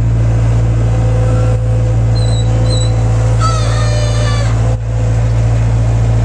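Bobcat skid-steer loader's engine running steadily, a loud low hum heard from inside the cab. A brief higher-pitched, wavering sound rises over it about three and a half seconds in.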